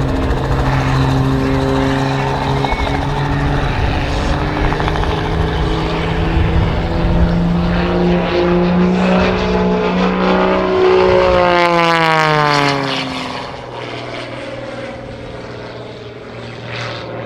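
Wolf Pitts Pro aerobatic biplane's 540-cubic-inch Lycoming engine and propeller running hard in flight. The pitch climbs steadily for several seconds, then drops steeply about twelve seconds in as the sound gets quieter, like a plane passing by.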